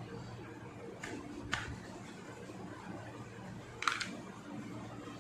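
A few short clicks and knocks of a small hand-held object being handled and tapped, three in all, the loudest near the end, over a low steady room hum.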